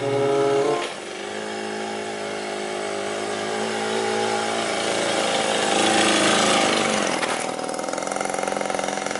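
Small motorbike engine running as the bike rides up and passes close by, growing louder to a peak about six to seven seconds in, then dropping away.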